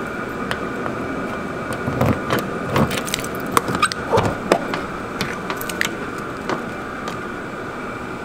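Keys jangling and clicking in a van's door lock as it is unlocked, with a cluster of sharp clicks and rattles in the middle, over a steady background hum.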